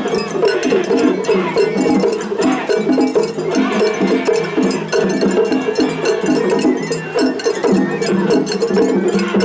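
Japanese festival hayashi from several ensembles playing over each other in a face-off: taiko drums, the clanging of small hand gongs (atarigane), and bamboo flute, dense and without a break.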